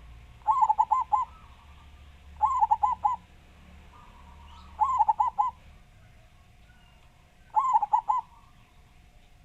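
Zebra dove (perkutut) cooing in four phrases a couple of seconds apart, each a quick run of about four loud coos.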